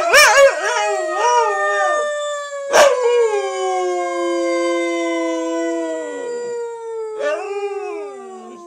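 Wolf-dog hybrid howling: wavering howls at first, then long howls that slowly fall in pitch, with a second howling voice at a different pitch overlapping hers. Two sharp knocks, one at the very start and one about three seconds in.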